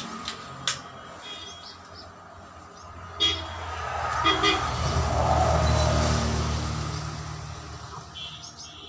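Road traffic: a vehicle's engine rumble swells and fades in the middle, with a few short horn toots.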